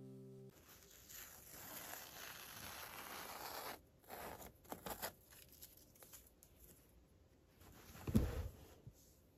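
Masking tape being peeled off a painted denim jacket in a long, steady rip lasting about three seconds, followed by a few light handling clicks. A dull thump about eight seconds in is the loudest sound.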